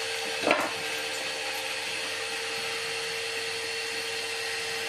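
A steady electric machine drone, an even hum with one held tone, with a single knock about half a second in.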